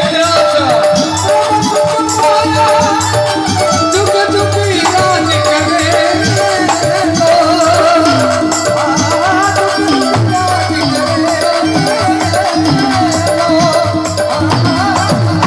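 Instrumental passage of a devotional bhajan: a wavering melody over quick, steady percussion with a rattling shaker-like sound.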